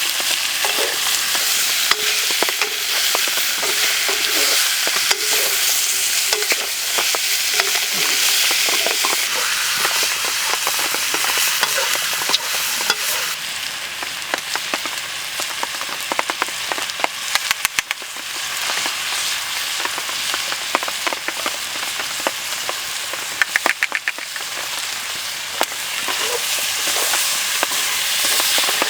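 Food stir-frying in a hot pan: a steady sizzle, with frequent clicks and scrapes of the stirring utensil against the pan, and two short runs of rapid clicking in the second half.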